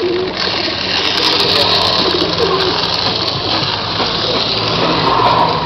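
Pigeons cooing while being fed: short, low, repeated coos over a steady hiss.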